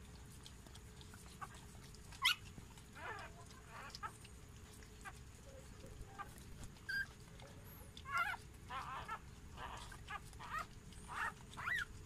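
Newborn Doberman-cross puppies squeaking and whimpering, a string of short high-pitched squeals that come more often in the second half, while the mother dog licks a just-born puppy.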